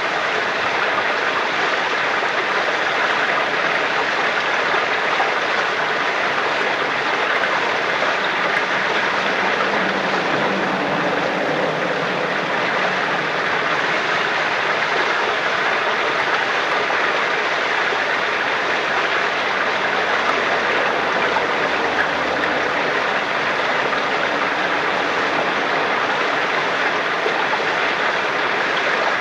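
Spring water flowing steadily from a holy well, an even, unbroken rush.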